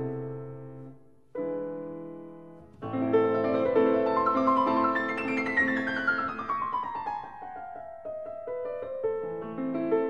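Background piano music: two held chords fade away, then a flowing passage with a long run of notes falling in pitch, and chords return near the end.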